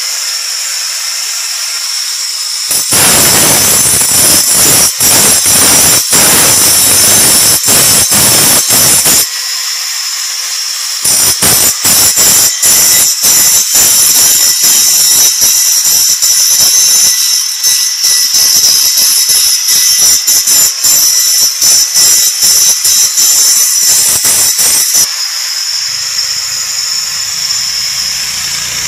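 Electric angle grinder running at speed with a steady high whine. From about 3 to 9 s and again from about 11 to 25 s it grinds rough and loud against steel as tool edges, an axe blade among them, are sharpened. It runs free in the short gap between and again near the end.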